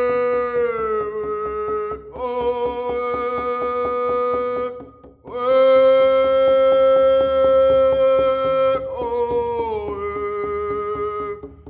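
Music of long held notes in four phrases, each a few seconds long with a short break between them; two of them slide down slightly in pitch.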